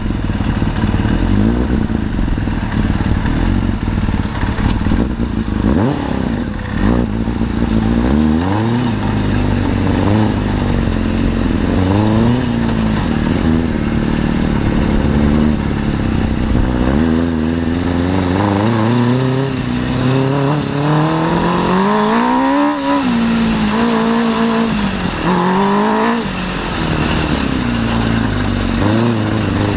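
The four-cylinder 600 cc Suzuki motorcycle engine of a home-built off-road buggy. It runs at low, steady revs at first, then revs up and drops back again and again as the buggy is driven, with several sharp climbs in pitch in the second half.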